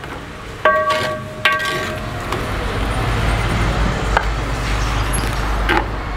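A steel ladle knocks against a metal cooking pot twice, about a second apart, and each knock rings briefly with a bell-like tone. Then comes a steady rumbling hiss with a few light knocks as the rice is scooped and poured out.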